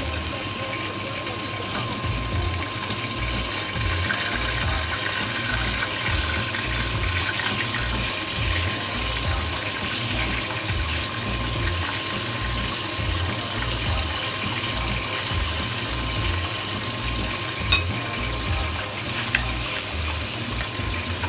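Chopped garlic and onion sizzling steadily as they sauté in oil in a stainless-steel pot, with two short knocks near the end.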